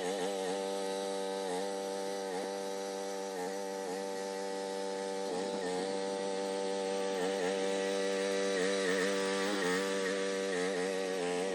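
Groundhog mini excavator's small engine running steadily, its pitch sagging briefly every second or so.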